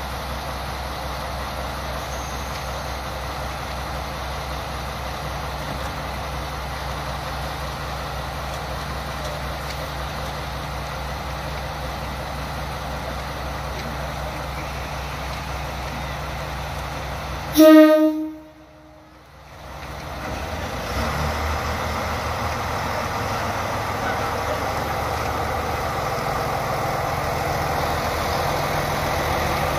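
Diesel railcar engine idling with a steady low hum; a little over halfway through, a short loud blast of the train's horn, after which the engine note rises and grows louder as the train pulls away.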